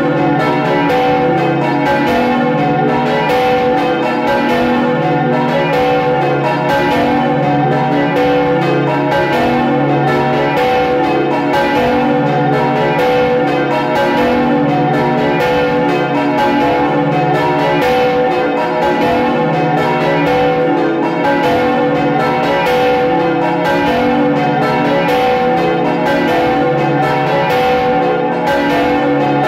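Five swinging church bells ringing together in a full peal, heard close up inside the belfry, their strokes overlapping in a continuous ringing.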